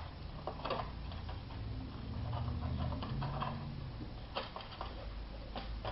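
Plastic connectors and a ribbon cable being handled and fitted inside an open mini PC case: light rustling with a few small clicks, over a low steady hum.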